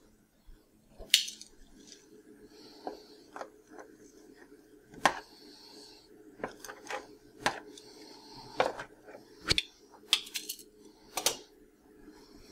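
Kitchen tongs clicking and tapping against a metal baking sheet as baked potato halves are flipped over: about fifteen irregular, sharp clicks.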